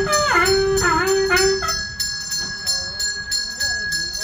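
Taoist ritual hand bell rung steadily in even strokes, about two to three a second, with a sustained ringing tone. A man's sung chant runs with it and stops about two seconds in.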